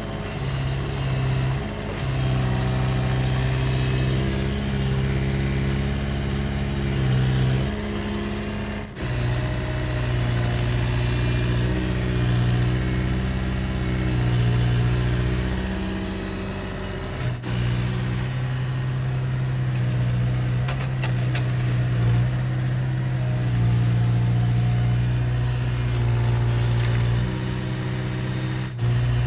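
Heavy construction machine's diesel engine running steadily, with brief breaks about 9, 17 and 29 seconds in, after which the engine note shifts a little.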